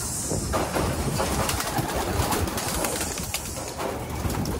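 Racing pigeons cooing around the loft, over a steady rush of wind on the microphone.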